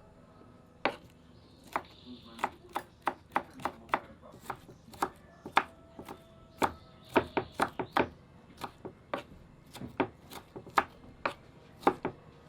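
Food being chopped with a blade on a board: an irregular run of sharp knocks, roughly two to three a second.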